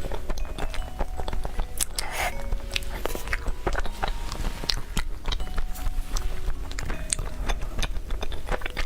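Close-up mouth sounds of someone biting and chewing Korean cake: many small, irregular clicks and wet smacks.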